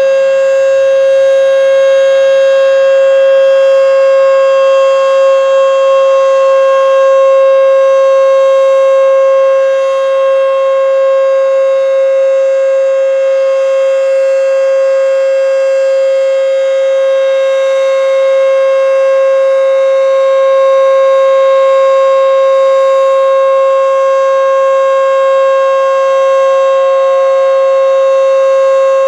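Federal Signal Model 5 electromechanical outdoor warning siren sounding a loud steady tone during a test, its pitch held level with a dense set of overtones.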